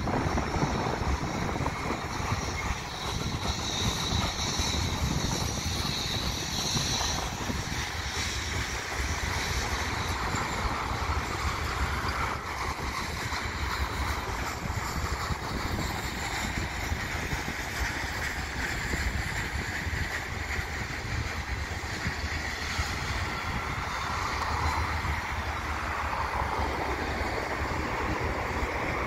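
Freight cars of a Canadian Pacific mixed freight train rolling past at steady speed: a continuous rumble of steel wheels on the rails. A faint high-pitched whine sits over it for the first several seconds, and a car passes on the road alongside near the end.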